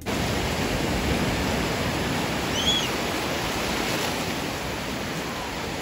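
Small waves breaking and washing through the shallows at the water's edge: a steady rushing surf, with one short high squeak about two and a half seconds in.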